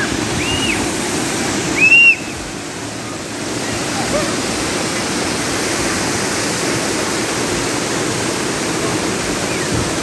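Steady rush of a waterfall pouring over rock, with two short high-pitched squeals in the first two seconds, the second one the loudest.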